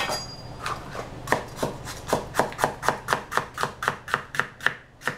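Chef's knife slicing a bell pepper into strips on a plastic cutting board: a few scattered knocks at first, then a steady run of strokes about four a second from about two seconds in.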